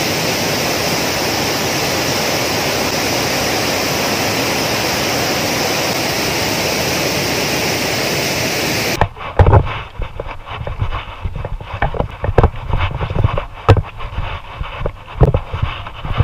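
Lulugayan Falls, a wide cascading waterfall, rushing in a steady, even wash of water noise. About nine seconds in this cuts off suddenly and gives way to irregular knocks and thumps as a mountain bike jolts over a rocky dirt road.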